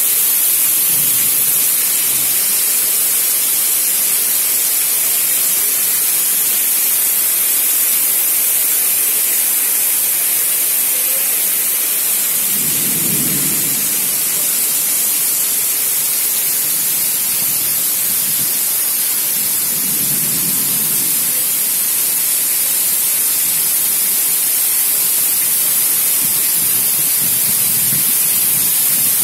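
Heavy rain pouring in strong wind: a loud, steady hiss, with a few low rumbles just before halfway, about two-thirds of the way in, and near the end.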